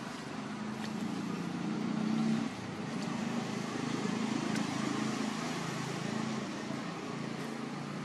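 Low engine rumble running steadily, swelling a little and then dropping off abruptly about two and a half seconds in.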